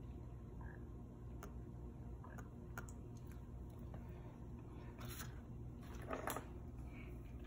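A pen writing on paper: scattered small clicks and short scratchy strokes, the two loudest about five and six seconds in, over a low steady hum.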